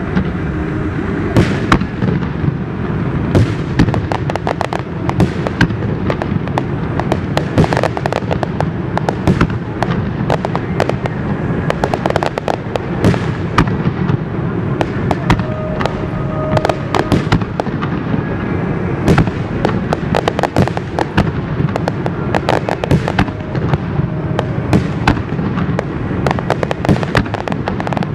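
Aerial fireworks display in a dense, continuous barrage: many sharp bangs and crackles every second over a constant rumble of booms.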